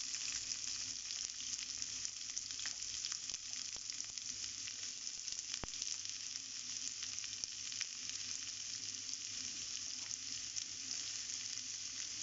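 Chopped red onions sizzling in hot oil in a non-stick frying pan, a steady hiss with a few sharp crackles. The onions have just gone into oil tempered with mustard seeds and curry leaves and are starting to sauté.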